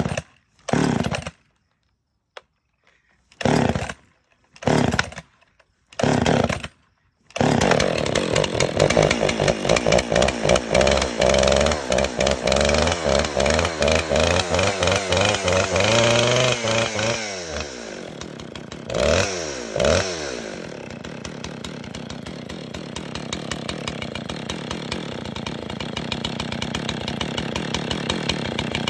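Husqvarna 262 XP two-stroke chainsaw being pull-started: several short pulls, then it catches about seven seconds in. It revs high and fast for about ten seconds, drops back, blips once more, and settles into a steady idle.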